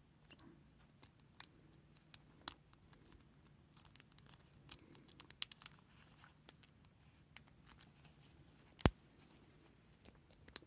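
Lock pick and tension wrench working in a lock's keyway: faint, scattered scratching and ticking as the pins are set, with one sharper click about nine seconds in.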